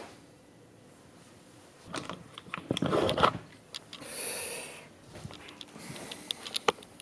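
Small plastic clicks and knocks of a DJI Phantom quadcopter and its gimbal being handled and switched on, with a short hiss about four seconds in.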